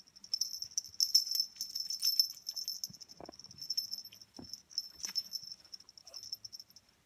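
A small bell on a Yorkie puppy's collar jingling quickly and unevenly as the puppy scampers about, with a few soft knocks about halfway through.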